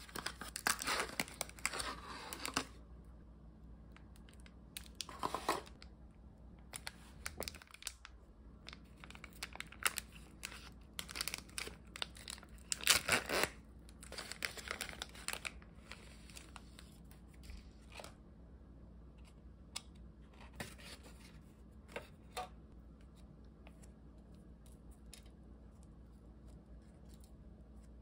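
A paper dessert box being opened and its plastic film wrapper crinkled and torn open by hand, in irregular bursts that are densest in the first half. After that only a few faint rustles.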